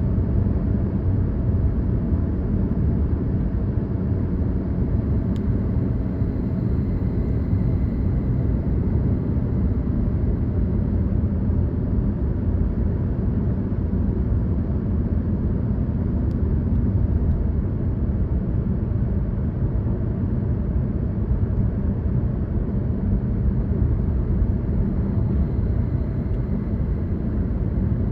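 A car driving at a steady speed: continuous low rumble of engine and tyre road noise, unchanging throughout.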